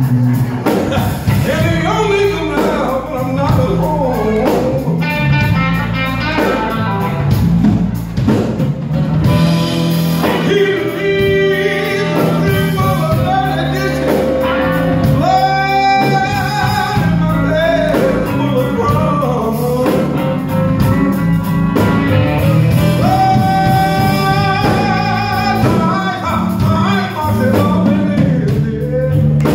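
Live blues band playing: trumpet and saxophone holding long notes over electric guitar, bass and drum kit, with a male singer.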